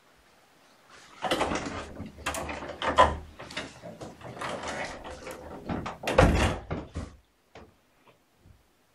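Close rustling, knocks and thumps for about six seconds, ending in a heavy thump: a door being opened and shut.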